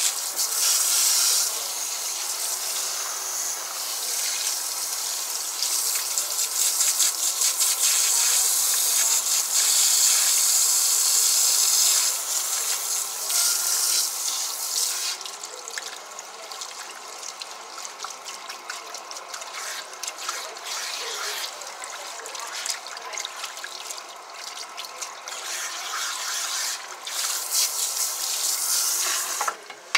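Water from a salon shampoo-bowl spray hose running over a client's head and splashing into the sink during a rinse. It is a steady hiss that eases off to a lower, uneven spray about halfway through and comes back loud just before the end.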